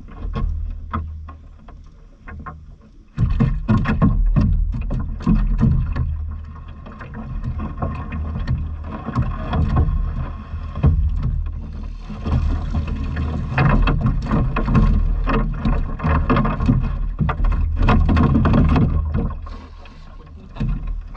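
Water splashing and dripping as a cast net is hauled hand over hand out of the water into a small boat, in many irregular splashes that grow busier about three seconds in, over a steady low rumble.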